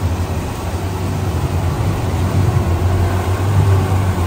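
Small boat's engine running steadily, a low drone.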